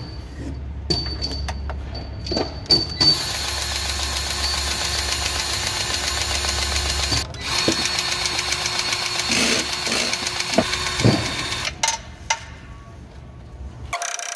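Battery-powered grease gun's motor running in two stretches of several seconds with a brief stop between, pumping grease into the grease fitting of a forklift load wheel. A few sharp clicks come before it starts.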